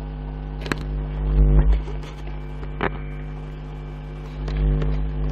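Steady low electrical hum from the recording setup, with a few sharp mouse clicks as wall points are placed on screen. Two low rumbles, one about a second and a half in and one near the end.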